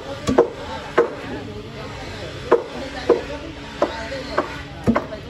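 Long pointed steel bar driven by hand into the end grain of a large log: about ten sharp metal-on-wood strikes at an uneven pace. The bar is chiselling open a bad crack in the log to see how the wood will split.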